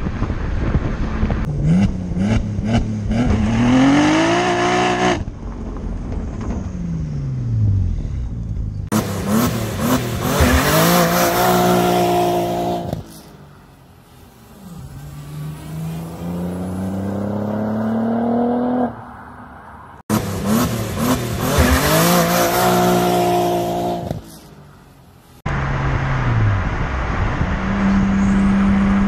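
Audi RS4 B5's 2.7-litre twin-turbo V6 accelerating hard, its note climbing and dropping back at each gear change. In between it coasts with a falling note, and once it is heard from far off, growing louder and higher as the car approaches. It settles into a steady cruise near the end.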